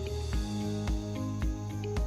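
Background music with a steady beat of about two thumps a second over a stepping bass line.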